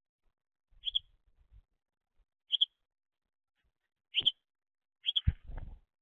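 House sparrow giving four short, high cheeping chirps, spaced about a second and a half apart. A soft low thump and a brief rustle come near the end.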